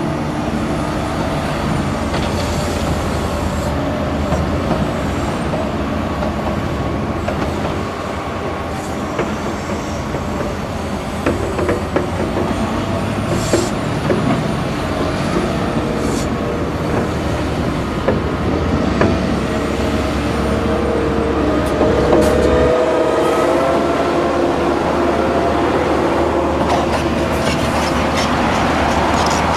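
Hitachi Zaxis 350 excavator's diesel engine working under load, with a steady whine and scattered clanks as the bucket digs and loads soil into a dump truck. About three-quarters of the way through, a loaded dump truck's diesel engine takes over, rising in pitch as it pulls away.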